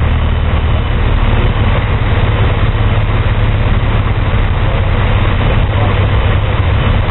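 Lycoming O-320 four-cylinder aircraft engine and two-blade metal propeller running steadily, heard from inside the cockpit as a low drone under a steady rushing noise.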